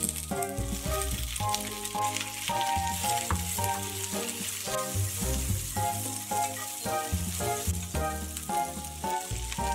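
Green peppers and garlic sizzling in hot oil in a cast-iron pan while being stirred with chopsticks, over light background music with a melody of short changing notes.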